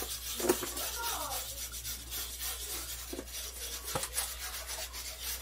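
Wire whisk stirring and scraping around a cast-iron skillet of thickening milk sauce, a steady run of soft rubbing strokes against the pan.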